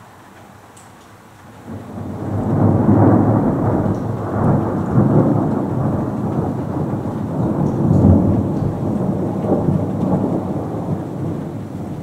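Rolling thunder: a low rumble that starts about two seconds in, swells with several peaks, and slowly dies away near the end.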